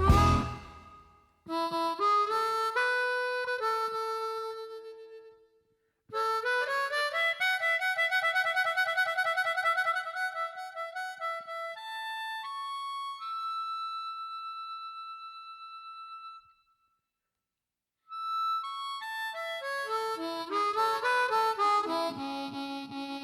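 Background music: a solo melodic instrument line in short phrases, with a fast trill about eight seconds in and a long held note near the middle, broken by two brief pauses.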